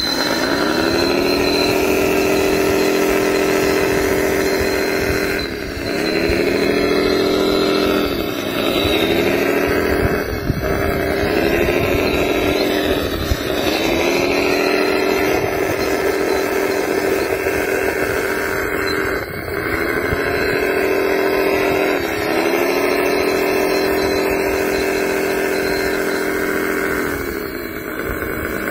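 Radio-controlled hydraulic wheel loader's motor running with a steady whine that dips in pitch and climbs back several times as it works.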